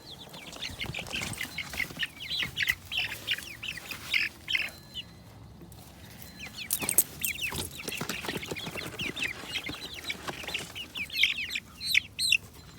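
Flock of young chickens (pullets) peeping and clucking in quick, repeated short calls, with a couple of sharp knocks about seven seconds in.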